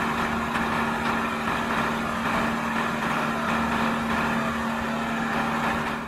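Renault 8x4 dump truck's diesel engine running steadily with its tipper body raised, a constant hum over the engine noise.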